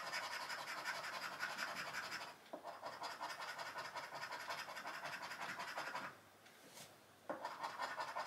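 Scratching the coating off a scratch card's play panel in quick, rasping strokes, with a brief break about two seconds in and a longer pause of about a second around six seconds in before it starts again.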